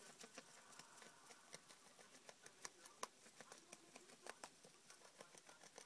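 Rabbit playing with a cardboard toilet roll tube in hay bedding: faint, irregular little clicks and rustles, several a second, with a sharper tap about three seconds in.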